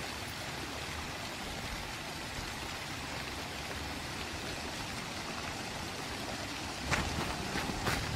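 A steady hiss of background noise, with a few sharp clicks near the end.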